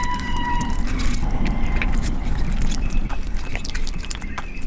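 Close-miked eating sounds: chewing with wet mouth clicks and smacks, and fingers working rice and meat on a metal platter. A thin steady tone runs through about the first second.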